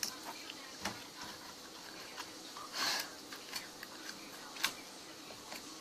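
Slime being poked and squished by hand, giving scattered small clicking pops, with one longer, louder squelch about three seconds in.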